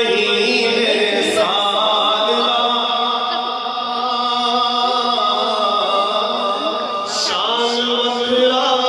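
Male voice chanting a devotional song of praise in long held notes, the pitch stepping to a new note about a second and a half in and again near the end.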